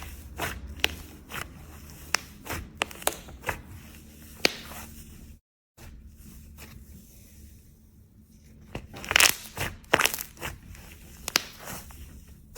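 Slime being pressed and worked by hand, giving irregular sharp pops and crackling clicks, with a louder flurry of pops near the end. The sound drops out completely for a moment about five and a half seconds in.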